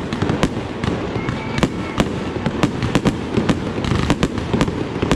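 Aerial fireworks show going off: a rapid string of sharp bangs and cracks, several a second, over a continuous low rumble of further bursts.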